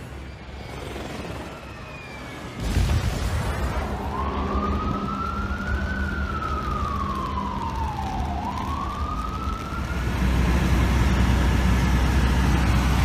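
Emergency vehicle siren wailing: its pitch climbs, slowly falls and climbs again, over a steady low rumble of street noise. The siren starts a few seconds in, after a quieter opening.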